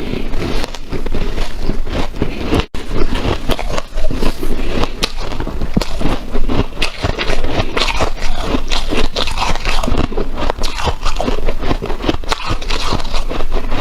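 Close-miked biting and chewing of snow-like powdery freezer frost: a dense, irregular run of crunchy, squeaky crunches, with one very brief break just under three seconds in.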